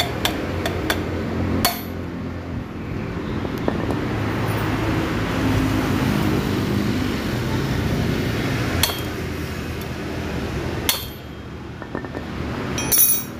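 Sharp metallic clinks and taps of steel tools and valve parts against a motorcycle cylinder head as the valve springs are compressed and removed: a few in the first two seconds, single ones about nine and eleven seconds in, and a quick rattle of clinks near the end, which is the loudest. A steady low background rumble runs underneath.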